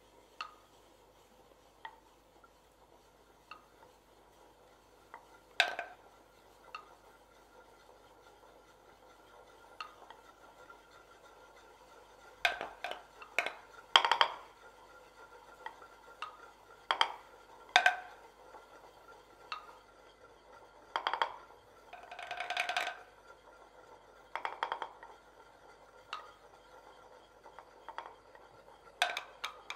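Hand-held mortars played as percussion: scattered single knocks and clicks, sparse at first and coming in quicker clusters later, with a short rattling run about twenty-two seconds in.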